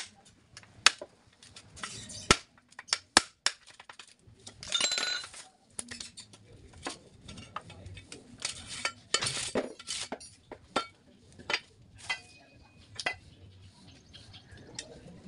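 Hammer striking a steel punch to drive old rivets out of a truck brake shoe, giving several sharp metallic knocks in the first few seconds. These are followed by a brief scrape and lighter metal clinks and knocks as the old lining is worked off and the shoe is handled.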